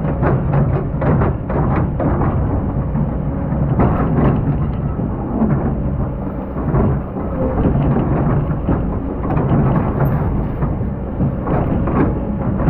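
Excavator working in a sand pit: a steady low engine rumble with frequent rattling and clattering of sand and stones.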